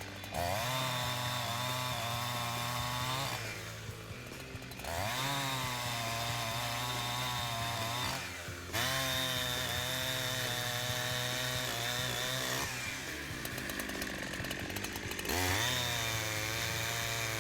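Holzfforma G372XP two-stroke chainsaw running at full throttle through a log in four cuts, easing off briefly between them, the pitch sagging and wavering as the chain bites into the wood.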